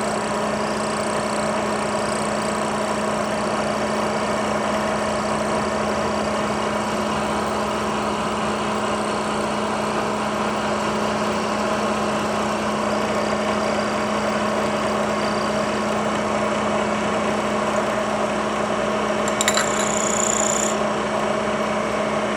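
Bridgeport milling machine running steadily with a steady hum, its end mill cutting an O-ring groove into a knife-jig post as the post is turned against the cutter. Near the end a brief high-pitched scrape with a few clicks sounds over the hum.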